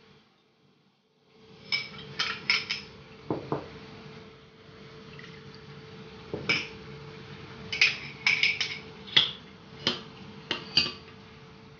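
Metal spoon clinking against glass bowls in a run of sharp, ringing clinks as chopped onion is spooned into a vinegar-and-soy dipping sauce and the sauce is stirred. A faint steady hum runs underneath.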